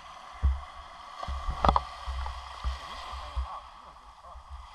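Small ocean waves washing and lapping on a sandy shore, with irregular low rumbling bumps on the microphone.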